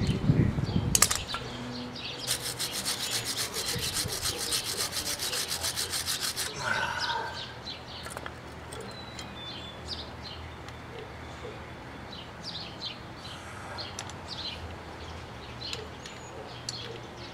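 A quick, even run of rasping clicks lasting about four seconds, from hand-tool work on a nut welded over a stripped one. Birds chirp over a faint low hum.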